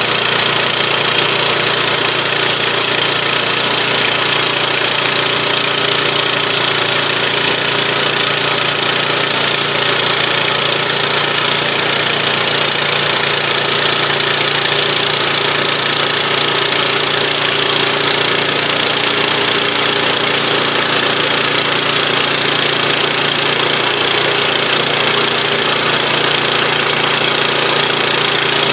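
Woodland Mills HM122 portable band sawmill running steadily, its small gasoline engine under even load as the new blade makes a trial cut through a log.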